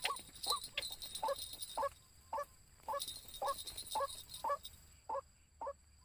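White-breasted waterhen (ruak-ruak) calling: a dozen or so short notes repeated about twice a second, stopping just before the end.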